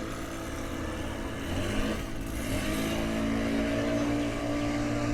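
Motorboat engine running steadily, its pitch rising about two seconds in as it speeds up.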